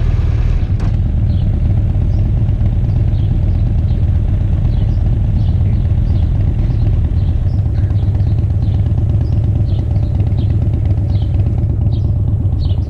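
Motorcycle engine idling steadily, with a click about a second in. Faint bird chirps sound repeatedly over it.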